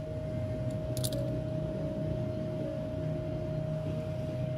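A steady hum with one constant tone runs throughout. About a second in, a brief burst of small clicks comes as airbrush parts are handled and fitted together.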